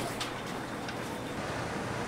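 Steady background noise like distant traffic or a running burner, with two faint clicks in the first second.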